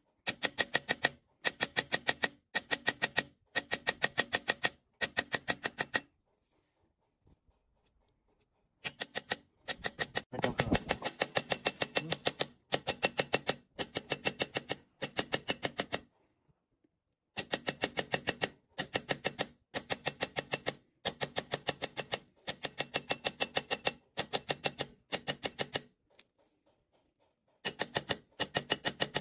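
Small hammer tapping a punch into a brass disc on a steel block, chasing a pattern: rapid light metallic taps, roughly ten a second, in bursts of about a second with short breaks and three longer pauses. A dull low thump sounds once, about a third of the way through.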